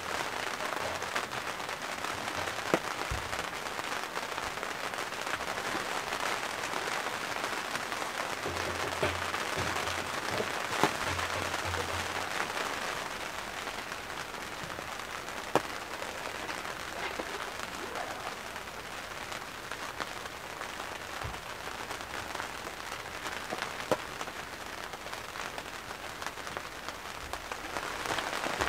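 Steady rain falling on a Naturehike Air 12Y tent, with a few single sharper drop impacts standing out now and then.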